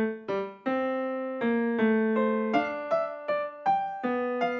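Background piano music: a gentle melody of single struck notes, a few a second, each ringing and fading before the next.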